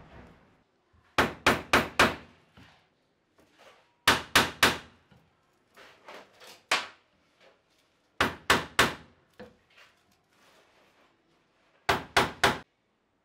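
Cobbler's hammer striking the leather heel of a sneaker held on a steel shoe stand. The strikes come in quick bursts of three or four, five bursts a few seconds apart, the third one lighter.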